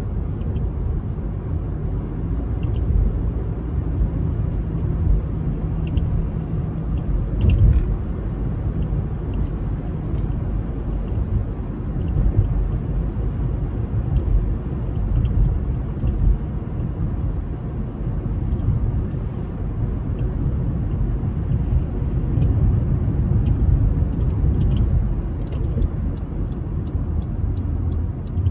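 Steady low road rumble of a car driving, with a few faint ticks and one brief knock about seven seconds in.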